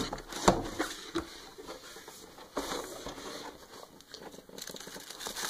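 Cardboard box being opened by hand: scattered knocks and scrapes as the sleeve and lid are handled, a few sharper taps in the first second and a half, and a denser rustle of the packing wrap toward the end.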